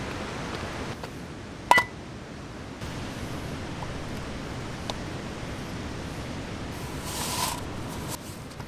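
Metal camp cookware clinks once with a short ring, over a steady rush of water from nearby rapids. A short hiss comes near the end.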